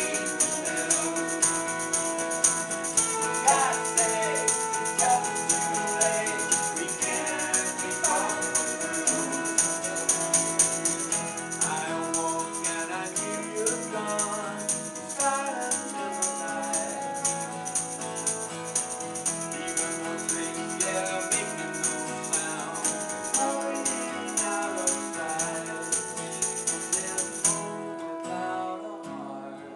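Small rock band playing a song live: acoustic and electric guitars and keyboard, with a man singing and a hand shaker keeping a steady rhythm. The shaker stops about two seconds before the end while the guitars and keys play on.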